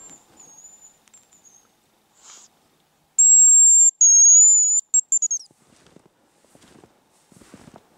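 Hazel grouse whistle call (a "Champion" lure) blown close by, imitating the male's song: two long, very high thin whistles, the second a little lower, ending in a quick falling trill of short notes. A much fainter high whistle comes at the start.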